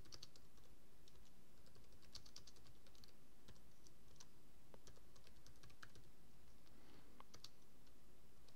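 Faint typing on a computer keyboard: scattered light key clicks at an uneven pace over a low steady hum.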